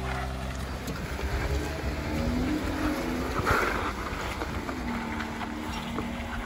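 Jeep Wrangler engine running at low revs while crawling slowly up a rock slab, its pitch shifting slightly with the throttle. There is a brief louder rush of noise about halfway in.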